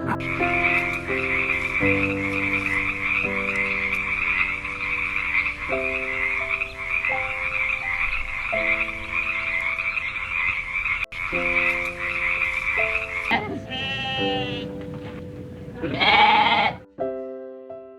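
A dense, steady animal chorus with a high, rasping texture, like a chorus of frogs, over soft piano notes. About 13 s in it stops, and two short pitched animal calls follow, the second louder, rising then falling.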